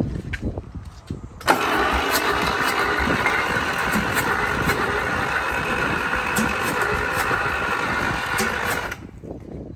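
Electric starter cranking an old diesel engine (badged Detroit, thought to be a rebranded Deutz) for about seven and a half seconds, beginning about a second and a half in and cutting off sharply near the end. The engine turns over on compression but does not fire.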